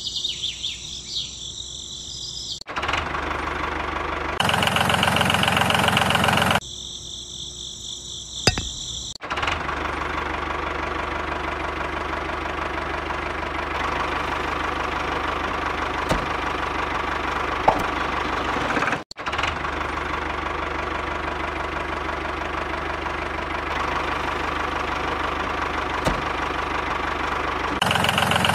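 A steady engine-like running sound, like a small tractor idling, that goes with a miniature homemade toy tractor, broken by a few short clicks. High cricket-like chirring fills the first few seconds and returns briefly before the running sound settles in for good.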